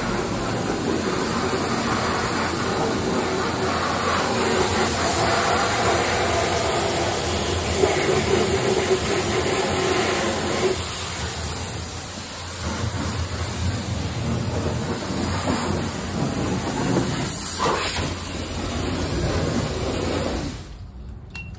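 High-pressure water spray from a self-serve car wash wand, a steady loud hiss as the jet hits the engine bay; it cuts off near the end.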